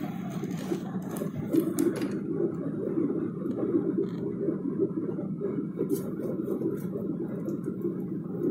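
Steady drone of jet engines and rushing air heard inside an airliner's cabin, deep and even, with a few light clicks a second or two in.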